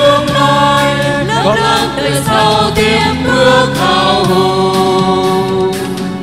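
Stage music: several voices singing together over an accompaniment with percussion strikes, the notes long and held, some sliding in pitch.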